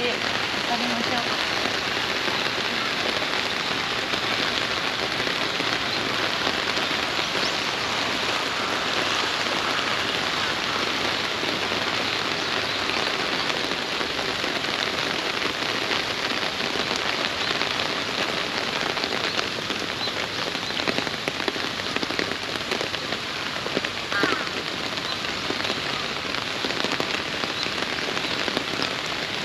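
Steady, fairly heavy rain, with many individual drops ticking on a clear plastic umbrella close overhead.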